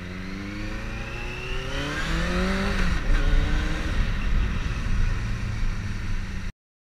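Benelli TNT 600i's inline-four engine accelerating hard, the revs climbing for about two and a half seconds, dropping at a gear change around three seconds in and climbing again, over wind and road noise. The sound cuts off abruptly near the end.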